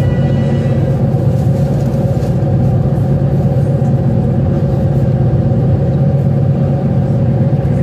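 Ocean Jet high-speed ferry's diesel engines running at speed, a loud, steady low drone heard from inside the passenger cabin.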